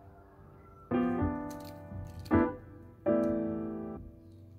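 Background piano music: three chords struck, each left to ring and fade.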